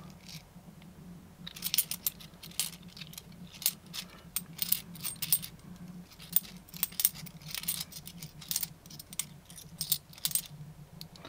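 Cupronickel 50p coins clinking against each other in the hands as they are picked through one at a time: many short, irregular clinks that start about a second and a half in.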